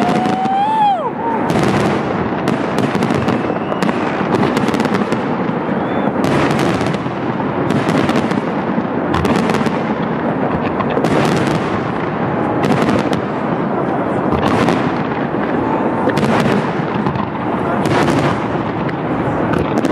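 Large fireworks display: a steady run of bangs and crackling bursts, about one every second, over a dense, continuous rumbling wash of sound. A brief pitched whistle rises and falls about a second in.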